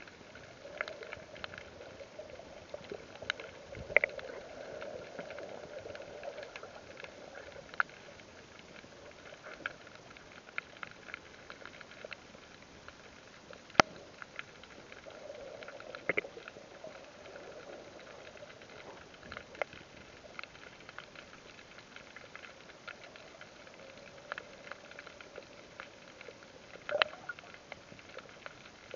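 Underwater ambience through an action camera's waterproof case: scattered sharp clicks and crackles over a muffled hiss that swells and fades, with a few louder clicks, one about halfway through and one near the end.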